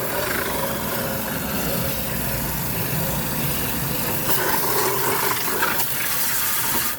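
Garden hose spraying water steadily into a window air conditioner's condenser coil, flushing out built-up dirt.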